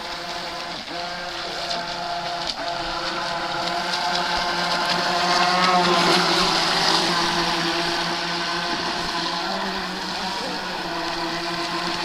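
Electric RC boat running on the water: a steady motor whine over the hiss of water. The whine rises slightly and grows louder toward the middle, then eases a little.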